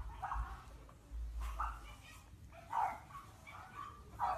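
Young puppies whimpering and yipping, about four short separate cries spread over a few seconds.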